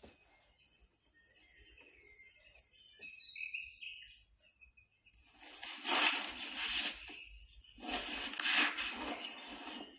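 Birds chirping faintly outdoors, short high calls scattered over the first half, then two loud rushes of noise, each about two seconds long, which cover the birds.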